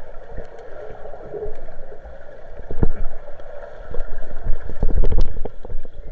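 Muffled underwater noise heard through a camera held below the surface of a pool: a steady hiss of churning water, broken by sharp low thumps and knocks, once about three seconds in and in a dense run from about four to five seconds in.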